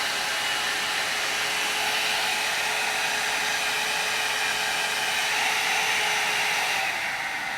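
INGLAM 1100-watt hair dryer brush running on its cool setting: a steady rush of blown air with a faint steady whine. Near the end the sound drops a little in level and brightness.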